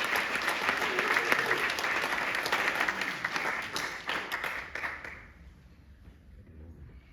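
Audience applause at the end of a song, many hands clapping, dying away about five seconds in and leaving a quiet room.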